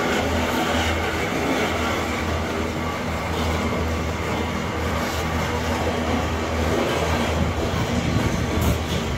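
Loaded iron-ore gondola wagons rolling past close by: a steady, loud rumble and clatter of steel wheels on the rails.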